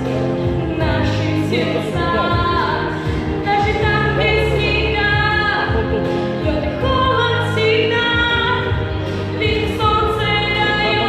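Music with singing: voices holding long notes over a steady low accompaniment.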